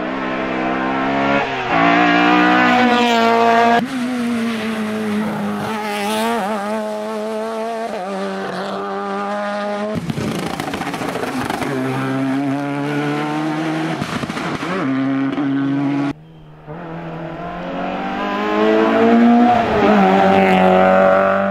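Rally car engines at high revs, one car after another, each accelerating hard with rising pitch and gear shifts. The sound changes abruptly a few times as it switches from one car to the next.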